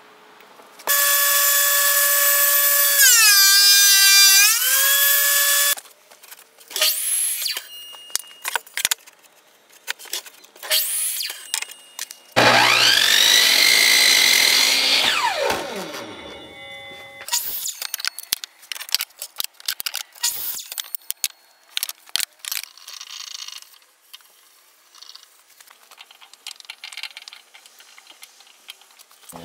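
Workshop power tools: a power-tool motor runs for about five seconds, its pitch sagging under load midway and then recovering. Scattered knocks and clatter of wood follow. Then an old Sears Craftsman table saw spins up, runs briefly and winds down, its pitch falling away.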